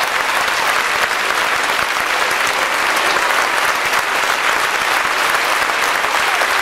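Theatre audience applauding, a dense, steady clapping that holds at an even level throughout.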